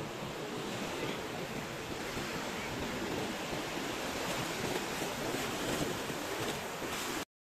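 Sea surf washing onto a sandy beach, a steady rushing wash that cuts off suddenly near the end.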